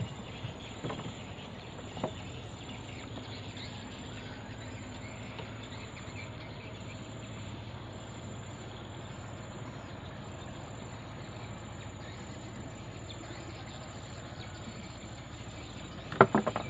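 Steady outdoor ambience of insects chirping over a low background hum. A couple of light knocks come in the first two seconds, and near the end a loud, brief burst of knocking and rattling.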